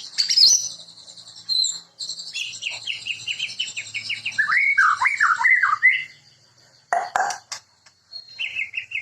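White-rumped shama (murai batu) singing: a run of quick repeated notes, then loud whistled warbles sliding up and down, a brief harsh note about seven seconds in, and after a short pause a fast trill near the end.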